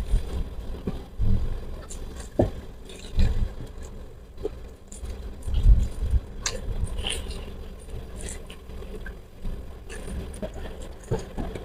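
A person biting and chewing fried chicken: irregular crisp crackles and wet mouth smacks, with a few heavier chews.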